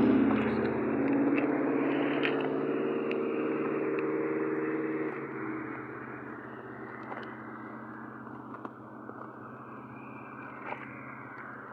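Diesel locomotive engine running as it moves away. Its loud, steady drone drops away about five seconds in, leaving a quieter low hum with a few faint clicks.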